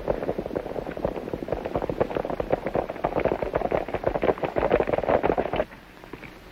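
Hoofbeats of a group of horses ridden at speed, a rapid, dense clatter that cuts off abruptly near the end.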